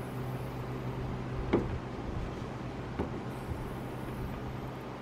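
Gas hood strut being pumped in and out by hand to prime it before installation, with a sharp clack about a second and a half in and a lighter one about three seconds in. A steady low hum runs underneath.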